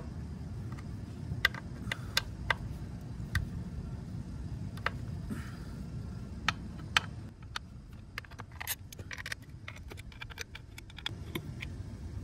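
Scattered light metallic clicks and taps of a T27 Torx driver on a Harley-Davidson primary cover's bolts, which are being loosened to let air in so the primary oil drains better. A steady low rumble runs underneath.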